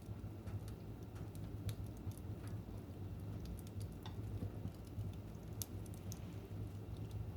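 Fire crackling in a fireplace: irregular sharp pops and snaps over a low, steady rumble.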